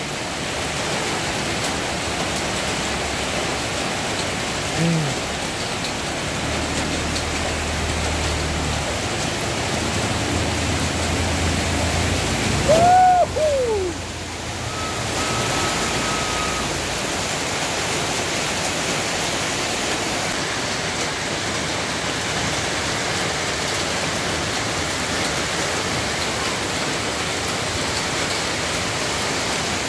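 Heavy rain pouring steadily in a dense hiss. About thirteen seconds in, a brief loud call rises and falls over it.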